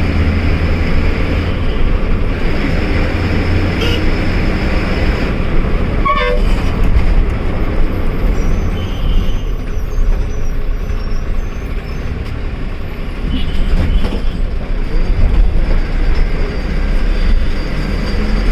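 Inside the cab of a moving bus: the bus's engine running with a steady low rumble, road noise and cabin rattle as it drives through town traffic. A few short vehicle-horn toots sound now and then.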